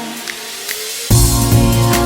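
Pop song backing music: a quiet break with a rising synth sweep, then the full beat with heavy bass and drums coming in suddenly about a second in.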